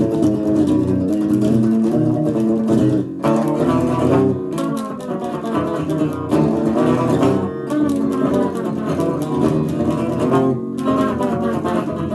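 Unplugged guitar playing a death/thrash metal riff with no amplifier: thin, dry picked notes in a driving rhythm. The playing stops briefly about 3, 4.5, 7.5 and 10.5 seconds in.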